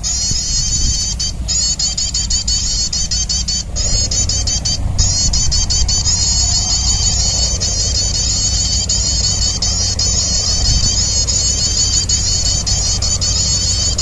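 A bird lure call plays continuously from a speaker to draw birds onto limed perches: a rapid, high-pitched chirring trill that repeats without pause except for three brief breaks in the first five seconds. Wind rumbles on the microphone underneath.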